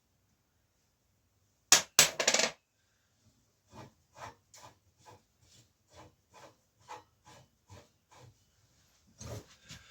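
Metal clanks of bicycle parts and tools as the forks and headset are taken apart: three loud knocks about two seconds in, then a run of light, evenly spaced clicks, about three a second, and a few more knocks near the end.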